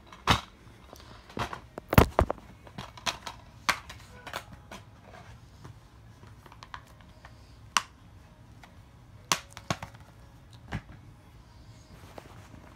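Handling noise: irregular sharp clicks and knocks with some rustling as a plastic DVD case and the recording phone are handled and moved about, the loudest knock about two seconds in.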